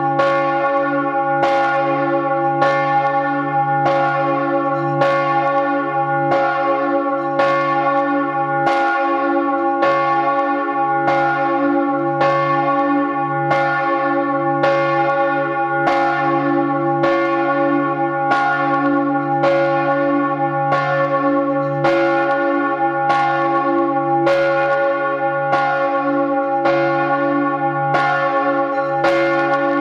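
Large church bell, the Michael bell cast in 1950 by Georg Hofweber, swinging in full peal and heard from right beside it in the belfry. Its clapper strikes evenly, about three times every two seconds, over a steady low hum. This is the Vorläuten, the preliminary ringing calling the parish to Sunday Mass.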